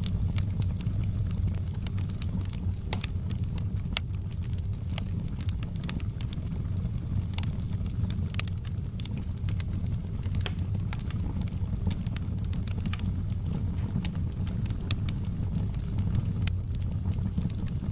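Wood fire crackling: many sharp pops and snaps at irregular moments over a steady low rumble of burning.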